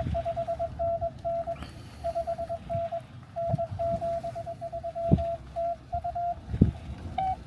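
Morse code (CW) tone from the Xiegu X6100 transceiver's speaker: a single steady-pitched beep keyed on and off in dots and dashes. Near the end a second signal at a slightly higher pitch comes in. A few low knocks are also heard.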